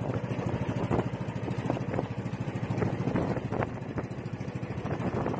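A small engine running steadily with a fast, even beat, with a few light knocks over it.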